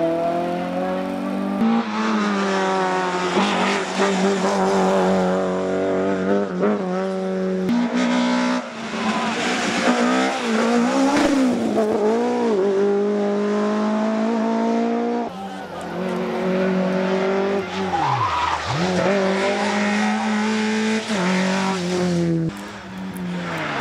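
Rally car engine revving hard, its pitch rising and falling again and again as the throttle is worked, with tyre noise underneath. About 18 seconds in the revs drop steeply almost to idle, then pick up again.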